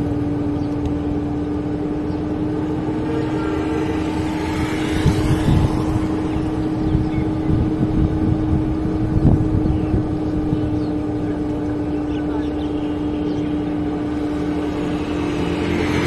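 Steady engine or motor running at one unchanging pitch over a low rumble, with a few brief louder bumps between about five and ten seconds in.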